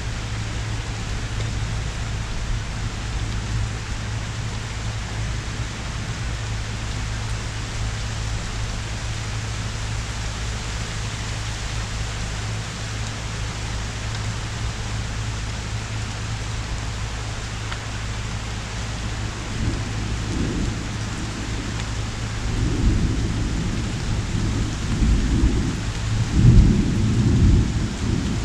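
Heavy rain pouring steadily, with thunder rumbling in about two-thirds of the way through and swelling loudest near the end.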